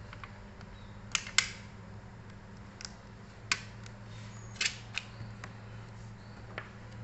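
Irregular sharp clicks and snaps of small laptop parts being handled and fitted during reassembly, about seven in a few seconds over a steady low hum.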